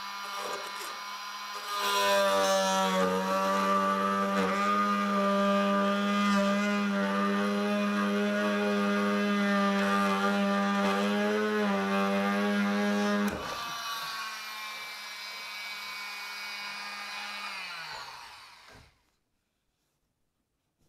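Handheld cordless power tool cutting into timber, a steady buzzing drone. It is heavier under load from about two seconds in to about thirteen, then runs lighter until it winds down and stops a couple of seconds before the end.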